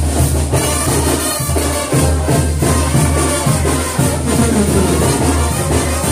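Loud festive music with drums and a heavy, steady bass beat.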